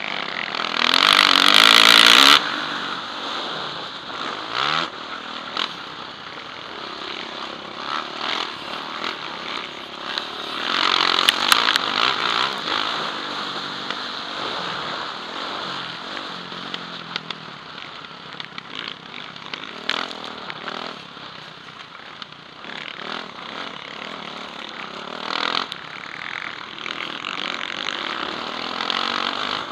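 A motocross bike engine heard from the rider's helmet camera, revving up and down over and over as the rider races round the dirt track. Loud bursts of rushing noise about a second in and again around eleven seconds in.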